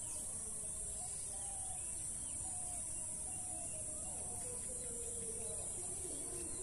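Insects droning steadily at a high pitch, with a few short bird chirps over it.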